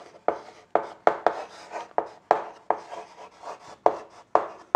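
Chalk writing on a green chalkboard: about a dozen short scratching strokes, two to three a second, each starting with a sharp tap and fading quickly.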